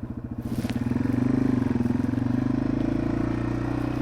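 Yamaha TW200's single-cylinder four-stroke engine pulling harder from about half a second in, then running steadily under way.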